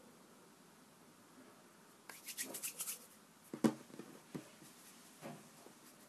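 Hands rolling and pressing a small piece of play dough against a tabletop. About two seconds in there is roughly a second of scratchy rubbing, then a single sharp knock on the table, the loudest sound, followed by a few lighter taps.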